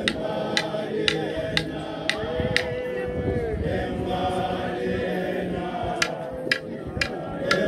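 A group of voices singing a Sepedi song together, with sharp percussive beats about twice a second. The beats stop for about three seconds midway and come back near the end.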